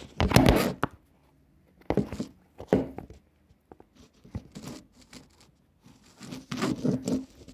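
Handling noise from a smartphone being grabbed and repositioned: fingers rubbing and bumping near its microphone in several short bursts, the loudest right at the start.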